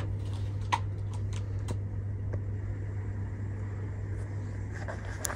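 Steady low hum of room ventilation in a capsule-hotel sleeping floor, with a few light clicks about a second in and again near the end.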